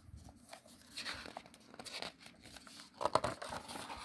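Paper rustling and crinkling as the pages of a hardcover storybook are handled, in short bursts, with the loudest rustle about three seconds in.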